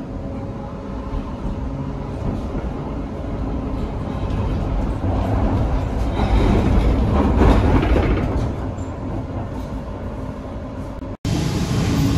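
Inside a BN GTL8 tram running along its track: a steady rumble of wheels on rails that swells louder midway and then eases off. Near the end it cuts abruptly to the sound outside beside the tram.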